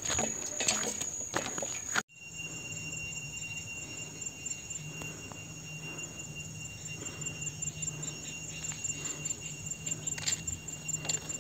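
Handling rustle and clicks for about two seconds, then an abrupt cut to a steady outdoor ambience of insects chirping: a high, evenly pulsing trill and a steady high whine over a low, steady hum.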